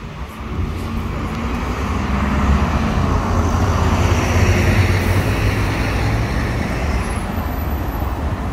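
Road traffic going past: a heavy vehicle's engine rumble with tyre noise, swelling over a few seconds as it passes and then easing.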